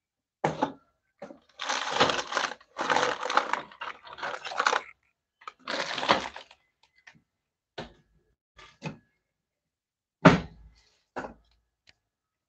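Hands rummaging among parts and handling objects while fetching an igniter board: bursts of rustling and clattering through the first half, then a few separate knocks, the sharpest about ten seconds in.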